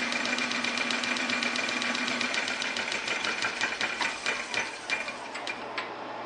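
Old metal lathe running with a rapid, even mechanical clatter while a taper is cut in a steel sleeve by hand-feeding the compound slide. A steady whine stops a little over two seconds in, and the clatter then slows and thins out toward the end.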